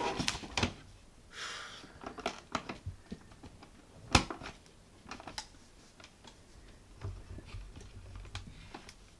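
Plastic clicking and scraping as a Nest Protect smoke alarm is pushed up onto its ceiling mounting plate and twisted to lock in, with a sharper click about four seconds in.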